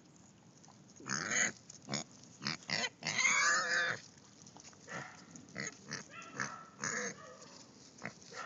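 Potbellied pig grunting in a string of separate grunts starting about a second in, the longest and loudest at about three seconds, then shorter, fainter grunts.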